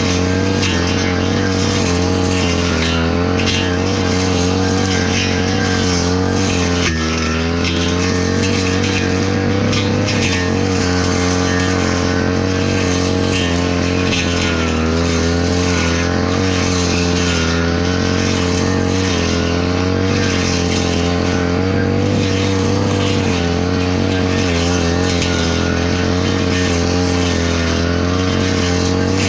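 Handheld brush cutter's small petrol engine running at high speed while cutting grass, its pitch wavering slightly as the head meets the growth, with a brief dip about seven seconds in.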